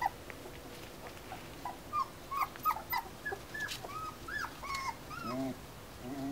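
Four-week-old Finnish Lapphund puppies whimpering: a run of short, high-pitched whines, several a second, each rising and falling in pitch, with a lower, longer whine about five seconds in.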